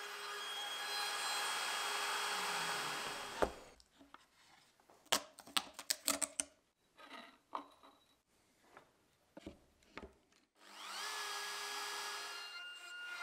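Wood router running as it cuts a circular recess in hardwood, shutting off about three and a half seconds in. Then several seconds of hand sanding and handling at the cut, irregular short scratchy strokes and knocks. Near the end the router starts again, its motor whining up to speed.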